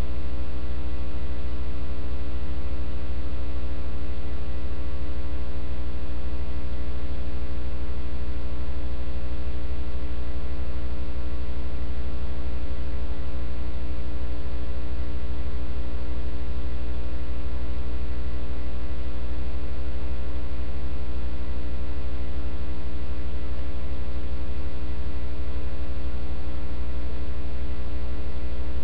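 Loud, steady electrical mains hum with a stack of overtones, unchanging in level or pitch.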